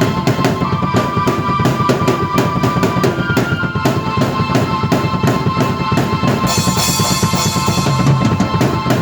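Drum kit and keyboard played together by one performer: a busy driving beat of bass drum and snare hits under sustained keyboard notes. The cymbals ring out brightly for a second or so about six and a half seconds in.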